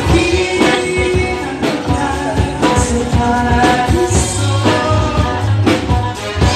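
Live band playing a pop-rock song: a male singer over electric guitars, keyboard and drums, with a steady beat.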